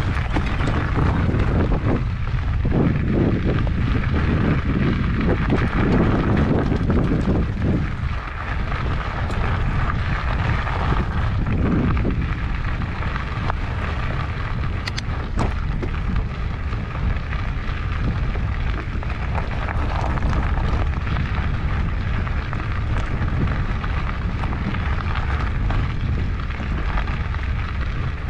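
Steady low rumble of wind buffeting a handlebar-mounted GoPro's microphone, mixed with the fat tyres rolling over a gravel track, with a couple of light clicks about halfway through.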